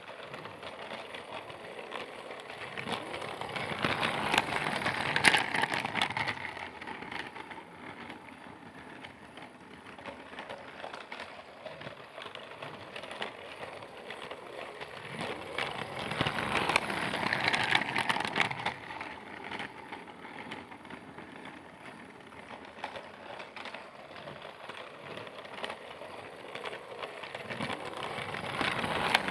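Percy train running with a rattling rolling noise that swells as it comes close and fades again, three times: about five seconds in, about seventeen seconds in, and at the end.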